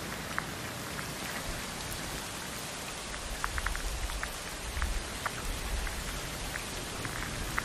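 Steady rain, a continuous even hiss with scattered droplet ticks.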